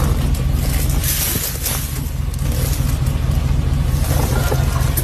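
A steady low rumble like a motor vehicle running, with noise over it, that cuts off suddenly at the end.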